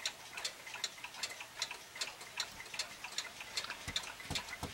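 Mattel rolling ball clock running: its plastic ball-lifting mechanism, an arm driven by a synchronous motor, gives a stream of light, irregular clicks about four a second. A few low thumps come near the end.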